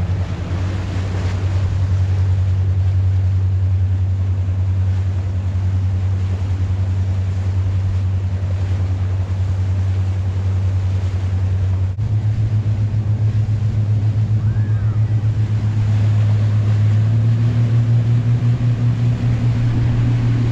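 Boat's outboard motors running steadily at cruising speed, a loud low drone over the rush of wind and water. The pitch steps up a little about halfway through and again near the end.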